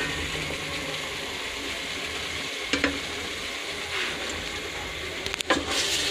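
Vegetables frying and sizzling in a metal cooking pot as they are stirred with a ladle, which knocks against the pot a few times.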